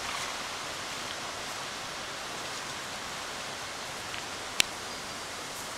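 Steady hiss of outdoor ambience in a pasture, with one sharp click about four and a half seconds in.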